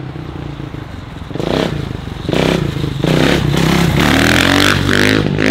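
Dirt bike engine revving hard during a wheelie pass. It builds from a lower run to a loud, high rev over the second half, with the pitch climbing near the end.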